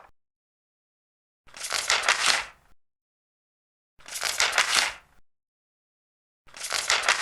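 Large paper pages being turned, three times about two and a half seconds apart, each turn a rustle lasting just over a second with silence between.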